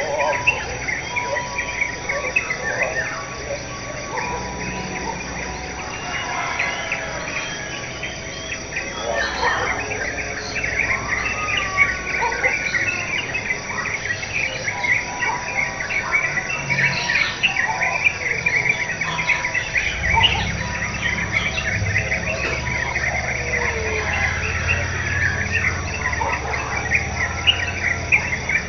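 Tropical morning ambience: many birds chirping and calling over a steady, high insect trill. About two-thirds of the way through, a low hum comes in underneath.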